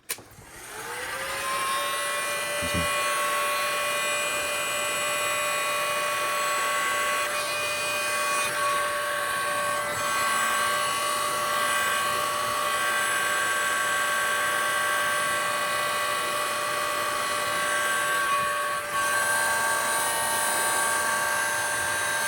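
Electric heat gun switched on, its fan motor spinning up with a rising whine and then running steadily, heating twisted wire insulation so it sets. Its tone shifts about 19 seconds in.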